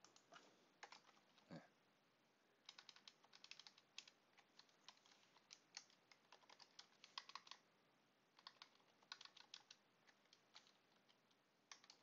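Faint computer keyboard typing: a few single keystrokes, then three quick runs of keystrokes with short pauses between.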